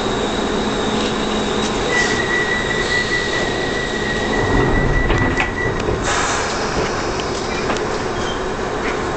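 London Underground train running through a tunnel, a steady rumble and rattle of wheels on rails. A high, steady wheel squeal comes in about two seconds in and stops just before six seconds, when a sudden rush of hiss follows.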